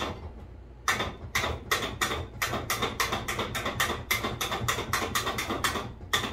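Electric winch lowering a car body, giving a rapid, regular clicking of about three clicks a second over a low hum.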